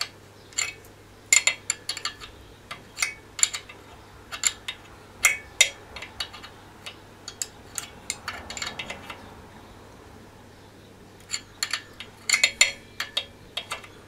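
Steel open-ended spanner clicking and clinking against the tappet locking nut and rocker of a BSA A65 Spitfire engine as the nut is tightened to lock in the valve clearance. The clicks come in irregular runs, busiest in the first few seconds and again near the end, with a lull in between.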